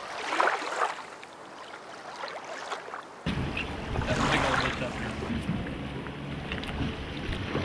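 Wind on the microphone over open sea, with water splashing and lapping around a small boat. The sound jumps suddenly louder and fuller a little over three seconds in.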